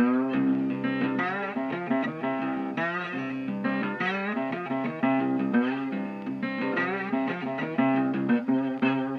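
Guitar-led background music, with bent, sliding notes over a steady low note.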